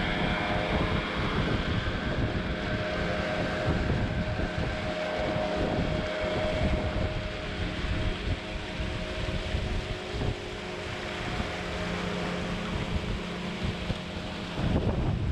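Outboard motor of a river longboat running at a steady cruising speed, with water rushing past the hull and wind buffeting the microphone.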